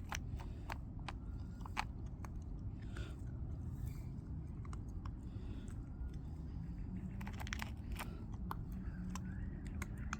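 Toy Cavoodle puppy chewing and crunching a snack: a string of short, irregular crunches.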